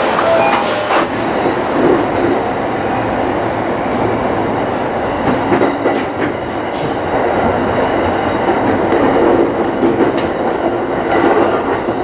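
Yamanote Line electric commuter train running, heard from inside the front car: a steady rumble of wheels on rails with a few sharp clicks.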